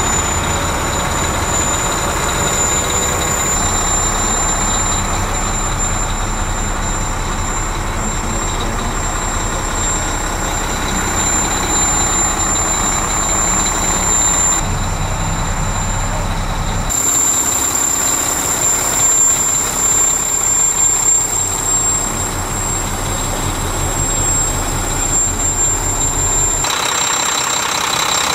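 Mack MP8 diesel engine idling steadily in a heavy truck tractor, a continuous low rumble under a steady high whine. The rumble changes character abruptly three times.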